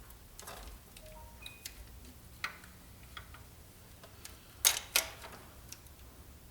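Scattered light clicks and taps of hand tools and parts being handled during engine timing chain work, with two sharper clicks in quick succession about two-thirds of the way through.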